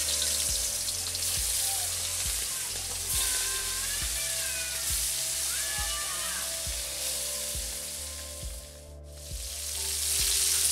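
Fish pieces frying in hot oil in a large wok, with a loud, steady sizzle. The sizzle breaks off briefly near the end, then comes back.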